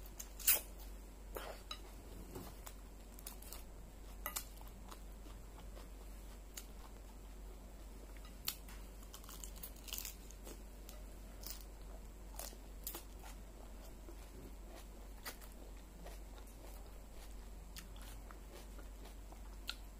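A mouthful of salad being chewed, with soft crunching and irregular short sharp clicks. The loudest click comes about half a second in.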